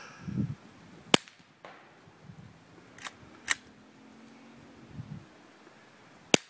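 Suppressed 9mm rounds fired one at a time through a Thompson Machine XD 2.0 subgun suppressor retrofitted to stop baffle strikes: about five short, sharp cracks at uneven intervals, some of them likely bullets striking the far dirt bank.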